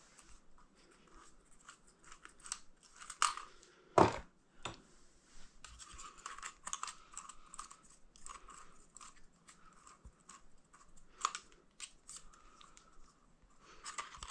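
Irregular small clicks, rustles and knocks of hands handling an RC tyre, wheel and metal worm-gear hose clamps, with a sharp knock about four seconds in and a few fainter ones later.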